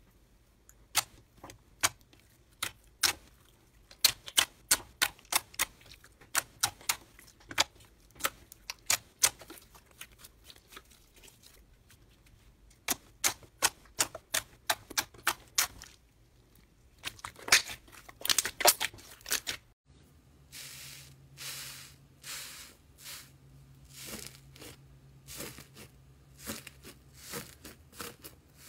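Fingers pressing and poking clear glitter slime, giving quick runs of sharp clicking pops. About two-thirds of the way in, it changes to hands pressing into slime with a dry crust, giving softer crackling over a low hum.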